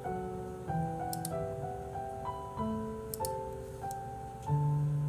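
Background piano music, a soft melody over chords that change every half second or so.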